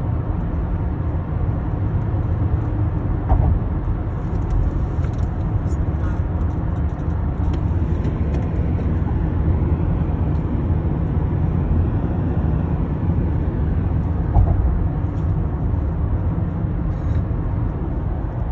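Steady road and tyre rumble inside a moving Toyota Camry 3.5, with faint, scattered creaks from the car's interior. The owner likens the creaking to a medieval cart and takes it for a build defect.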